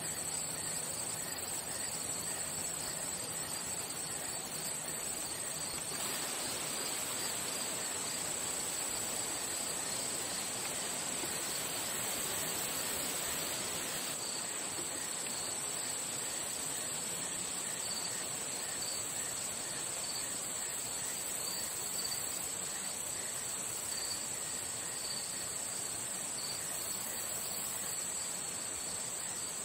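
Chorus of singing insects: a continuous high-pitched trill with a second, rapidly pulsing trill a little lower, steady over a soft background hiss.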